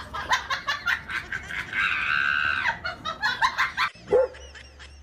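A dog vocalizing in quick, high yips and barks, with a drawn-out high whine about two seconds in; the run cuts off suddenly near four seconds, followed by a single lower bark.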